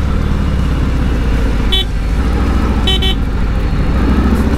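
Harley-Davidson Sport Glide's V-twin engine running low and steady in traffic. A vehicle horn beeps twice, briefly about two seconds in and slightly longer about three seconds in.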